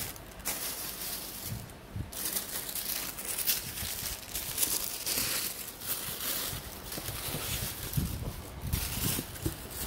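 Thin tissue paper in a cardboard shoebox rustling and crinkling as hands fold it back around the shoes, coming and going with short pauses.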